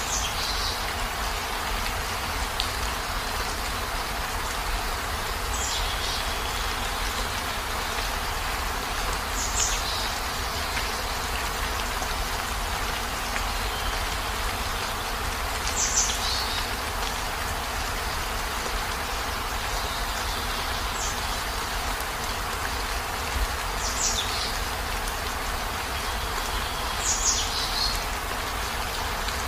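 Heavy rain falling steadily, with a low rumble underneath. A brief high, falling chirp-like sound recurs every few seconds.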